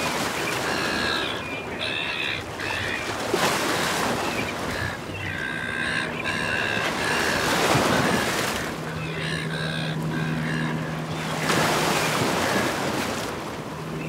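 Surf washing over the rock shelf with wind on the microphone, while seagulls call in short repeated cries in three bursts. A low steady hum joins about two-thirds of the way in.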